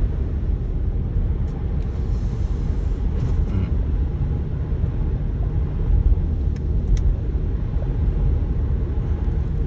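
Steady low rumble of tyre and road noise inside the cabin of a 2019 Jeep Grand Cherokee driving at about 40 mph over icy slush, with a few faint clicks.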